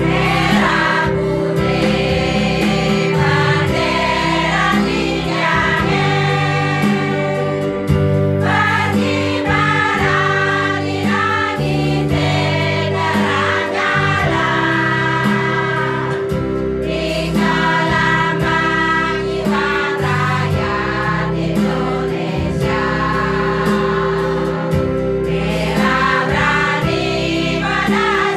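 Choir of elderly singers singing a folk song together over a steady instrumental accompaniment.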